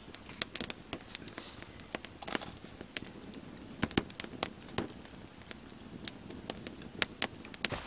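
Campfire crackling, with many short, sharp pops at irregular intervals over a low hiss.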